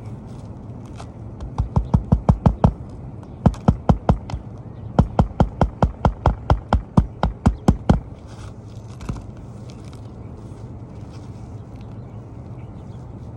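Hand hammer driving roofing nails to fasten an asphalt shingle back down: quick blows about five a second, in three runs, the last about three seconds long.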